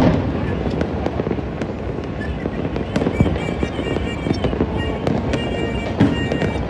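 Many fireworks bursting at once: a continuous rumble of overlapping bangs, with louder bangs at the very start, about three seconds in and about six seconds in.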